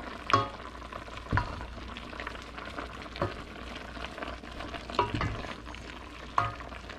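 Wooden spatula stirring chicken pieces and moringa leaves in a stainless steel pot of simmering soup, with a steady low sizzle of the hot broth and a few sharp knocks of the spatula against the pot at irregular intervals.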